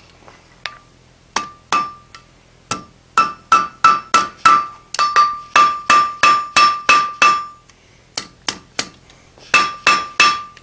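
Hand hammer striking a hot iron bar on an anvil, drawing it out: sharp blows, each followed by a ringing note from the anvil. A few spaced strikes open, then a fast run of about two or three blows a second, a short pause, and a last group of strikes near the end.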